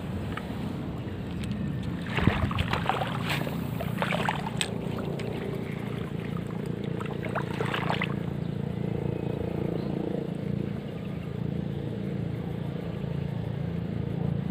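A motor hums steadily throughout, with a few clusters of short clicks and scrapes about two to four seconds in and again near eight seconds.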